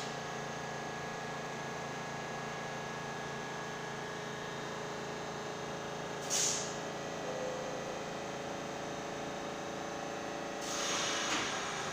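R46 subway train standing at the platform, its onboard equipment humming steadily with several steady tones. A short hiss of air about six seconds in, and near the end a rising rush of noise as the train starts to move off.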